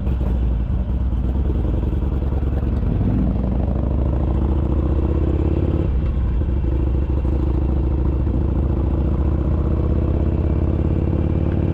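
Harley-Davidson Iron 883's air-cooled V-twin running steadily through a Roland Sands Design 2-into-1 exhaust, with small changes in pitch about three and six seconds in.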